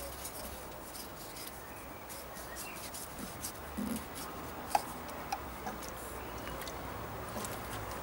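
Faint handling sounds of a plastic additive bottle: a few light clicks and rubs as it is opened and fitted into a car's fuel filler neck, over a low, steady background hum.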